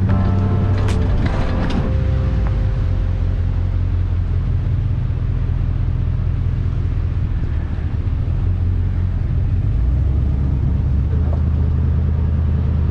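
Pickup truck engine and drivetrain running as a steady low drone while the truck crawls along a dirt jeep trail. The engine note shifts a couple of times as the throttle changes.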